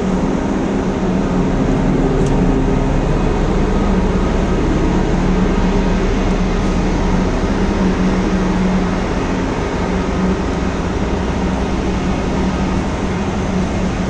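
Steady, loud drone of a cargo ship's machinery, a low hum with a few held tones under a constant rumble.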